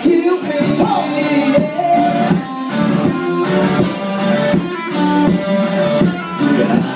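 Live country band playing, led by guitars.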